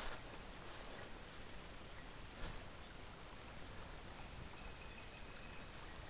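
Quiet woodland background with faint, thin, high bird calls now and then, and a brief rustle of brush about two and a half seconds in.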